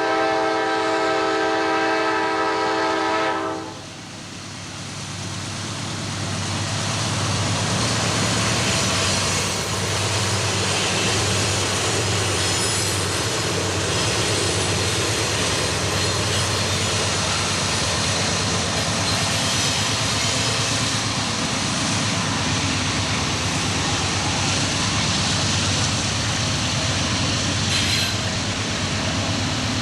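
A diesel locomotive's multi-note air horn sounds and cuts off about three and a half seconds in; then the train rolls by, a steady rumble of locomotive engine drone and wheels on rails that builds up over a few seconds and holds.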